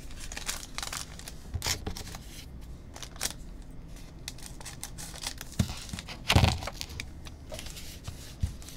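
The wrapping and cardboard of a trading-card hobby box being torn open and handled: a run of tearing and crinkling crackles, with a louder knock about six and a half seconds in.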